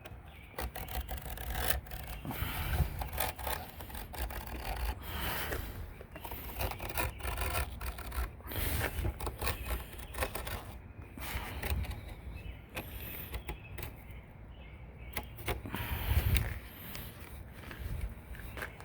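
Irregular scraping and rubbing with scattered small knocks and clicks: hand work on a screen door, heavy-duty pet screen being worked into the frame.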